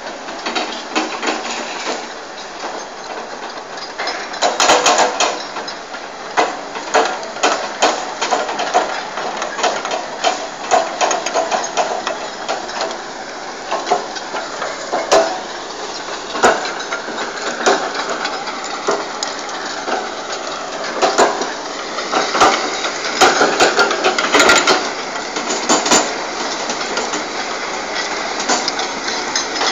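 Cat log loader working logs with its grapple: the diesel engine runs under load while the boom and hydraulics work, with many sharp knocks and clunks of logs and grapple throughout. In the second half a wavering whine rises and falls.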